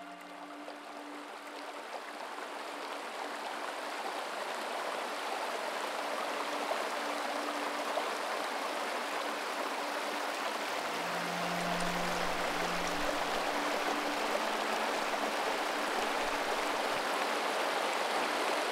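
A shallow mountain stream rushing and splashing over rocks, swelling up over the first few seconds and then running steadily. A faint low held tone sits beneath it.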